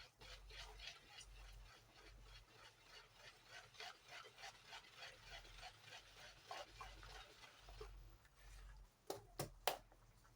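Faint rhythmic stirring of a thick batter in a bowl, about three strokes a second, followed by two sharp knocks near the end.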